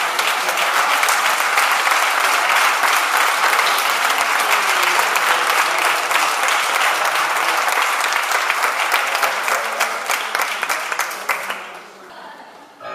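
Audience applauding: dense, steady clapping from many hands that dies away about a second and a half before the end.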